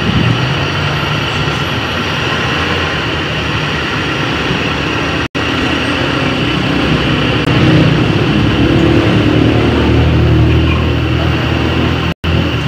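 Mitsubishi Lancer's carbureted 4G15 inline-four engine running, a little louder in the second half. The engine has a black-smoke and misfiring problem from an over-rich, worn carburetor, with its air mixture not yet adjusted.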